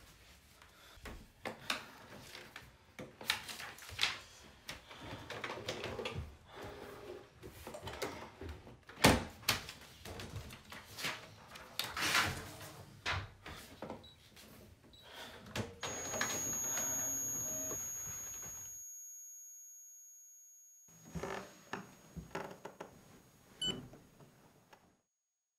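A run of knocks, thuds and clicks as a person handles a home printer and moves about. A thin high steady whine comes in about two-thirds of the way through. Everything drops out for about two seconds near the end, then a few more clicks follow.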